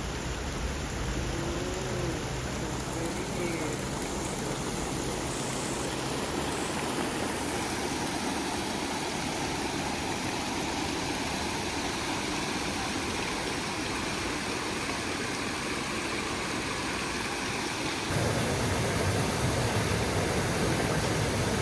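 Brook water running over rocks, a steady rush of flowing water that steps up in loudness near the end.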